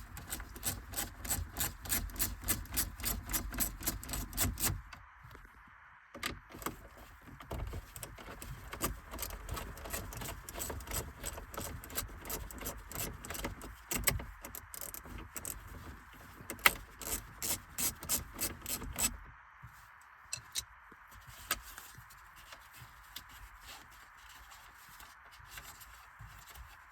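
Ratchet wrench clicking in quick, even runs of about six clicks a second as 7mm bolts are backed out, then fainter scattered handling for the last third.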